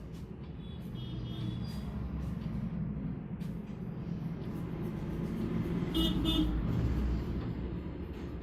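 Steady traffic rumble with a vehicle horn sounding twice in quick succession about six seconds in.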